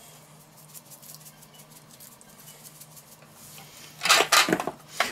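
Hands rubbing salt and pepper into a raw pork loin in a stainless steel tray: faint light ticks and rubbing, with a short, louder rush of noise about four seconds in and a briefer one near the end.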